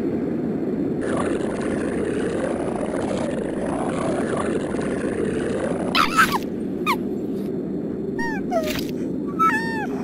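A steady low rumbling drone, joined about six seconds in by a run of short, high animal-like cries that swoop up and down in pitch.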